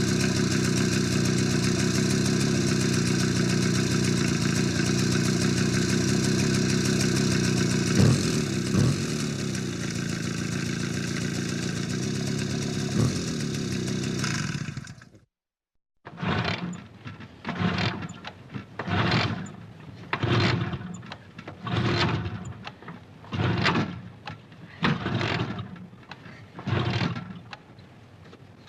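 Motorcycle engine running steadily, with a couple of short blips in the middle. After a brief cut to silence comes a run of about nine short swells of engine noise, each rising and falling.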